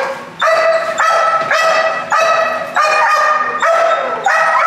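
A shepherd puppy barks repeatedly in high-pitched barks, about two a second, while held back on a leash from a bite pillow: drive barking at the toy.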